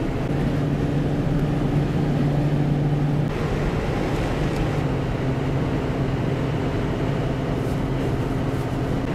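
Car engine hum and tyre-on-road noise heard from inside the cabin while driving on a highway; the steady hum shifts slightly lower about three seconds in.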